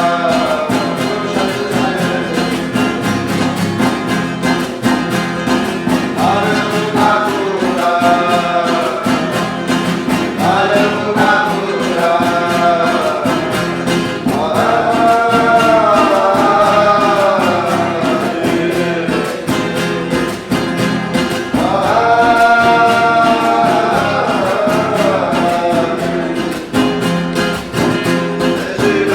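Huni Kuin chant: singing in long, gliding phrases with short pauses between them, over a steady instrumental accompaniment.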